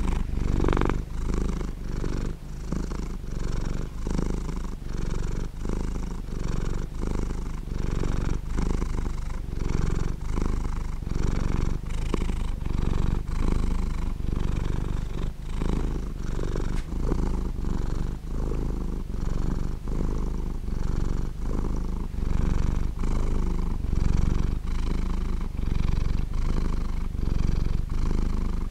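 Domestic cat purring steadily, the purr pulsing in a regular rhythm of about three pulses every two seconds as the cat breathes in and out.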